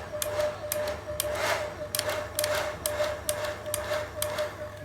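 Visique hair dryer running: a steady motor whine with sharp, irregular clicking through it, several clicks a second.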